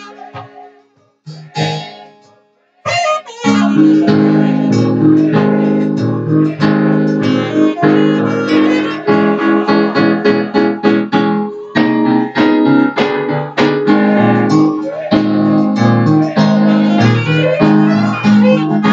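Instrumental music led by an electric keyboard, playing full chords in a quick rhythm. It drops out shortly after the start and comes back in about three seconds in.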